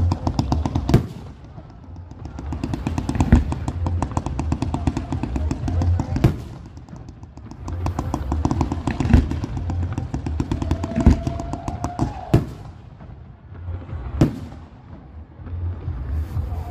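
Fireworks display: stretches of rapid crackling shots from fireworks going off, broken every second or two by louder single bangs.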